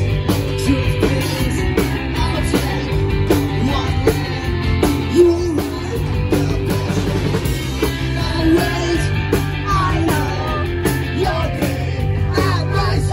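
Live rock band playing loud and continuously: electric guitar, bass guitar and drums, with singing.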